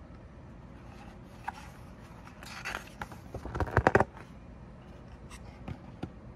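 Pages of a picture book being turned by hand: a soft paper rustle, then a quick run of flaps and taps a little past the middle, the loudest part, and a few light ticks after.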